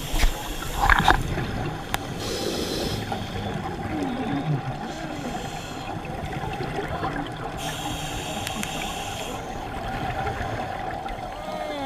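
Underwater sound on a scuba dive, heard muffled through the camera housing: a steady hum with a diver's regulator hissing on two inhales about five seconds apart, and bubbling and low gurgles in between.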